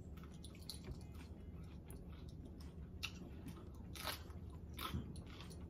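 Close-up crunching and chewing of a raw sweet mini pepper being bitten into: a run of crisp crunches, loudest about four and five seconds in.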